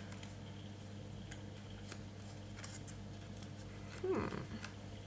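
Faint handling of a small paper gift box: light scattered rustles and ticks over a steady low electrical hum, with one brief louder sound about four seconds in.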